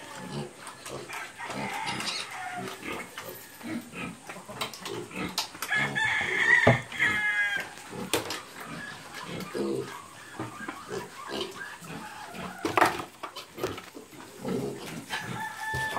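Recently weaned piglets grunting in short, repeated grunts. About six seconds in a louder, higher drawn-out animal call ends in a rapid flutter, a sharp knock comes a little before the end, and another short high call follows near the end.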